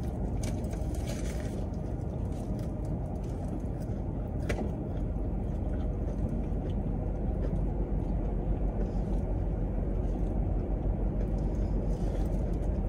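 Steady low rumble of a running car heard from inside the cabin, with a few faint clicks near the start and about four and a half seconds in.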